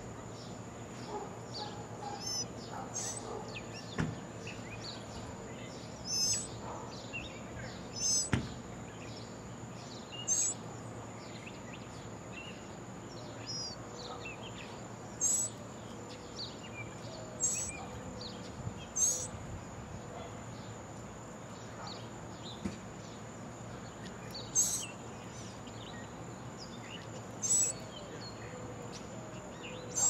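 Short, high bird chirps repeating every couple of seconds, over a steady high-pitched whine and outdoor background hiss.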